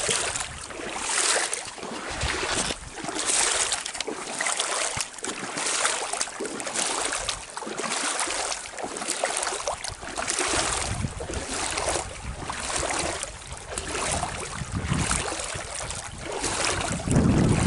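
A person walking on wet ground beside flooded water, one swishing, wet footstep about every second. Wind buffets the microphone with a low rumble near the end.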